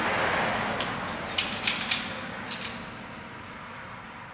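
IRWIN VISE-GRIP self-adjusting wire stripper working on the wires: about five sharp metallic clicks and snaps of its jaws as the insulation is cut and stripped. They sit over a rushing background noise that fades away.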